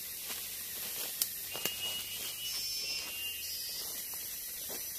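Tropical forest ambience: a steady high hiss of insects, a brief high whistling tone about halfway through, and a few sharp clicks.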